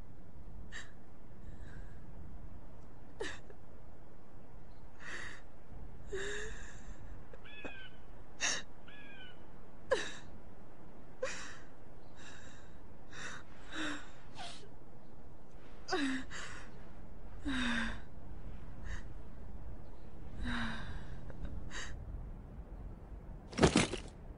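A young woman sobbing: short, shaky gasping breaths and whimpers every second or so, over a steady wind. Near the end the wind drops away and there is a single sharp knock.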